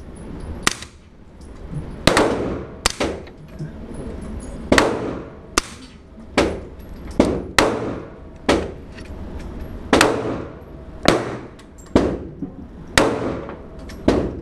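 Sig MPX 9mm carbine fitted with a Gemtech Multimount suppressor, firing 124-grain American Eagle rounds one at a time: about fifteen sharp suppressed reports at an uneven pace, each with a short echoing tail.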